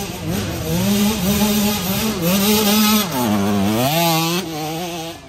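Small youth dirt bike's two-stroke engine revving hard under load on a steep dirt climb, the revs surging and falling again and again, with a deep drop about three seconds in before climbing back.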